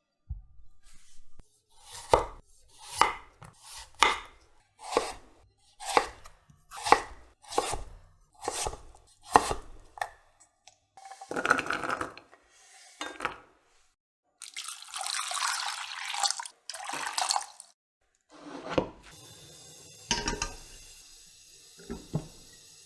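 Knife chopping food on a cutting board in steady strokes, about one a second, followed by a few longer rushing water-like bursts and then a steady hiss like oil sizzling.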